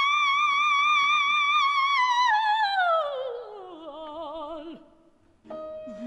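Operatic coloratura soprano voice holding a high note with wide vibrato, then sliding down in a long descending glide and fading out about five seconds in. Steady piano notes come in near the end.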